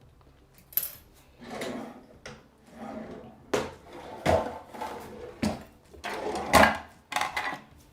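Irregular knocks, clicks and short rustles of objects being handled close to the microphone, several strong knocks about midway and near the end.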